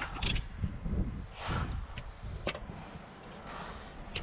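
Tool-handling noises: a few short, light clicks and knocks, with a brief rustle about a second and a half in, over a low rumble.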